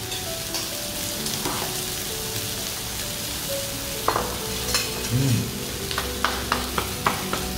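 Pork belly and pork neck sizzling on a tabletop grill pan, a steady frying hiss. Near the end comes a quick run of sharp clicks.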